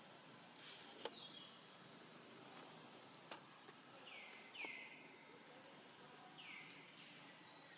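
Faint outdoor ambience with short high calls that sweep down in pitch and level off, heard three times in the second half, plus a brief hiss near the start and a few light ticks.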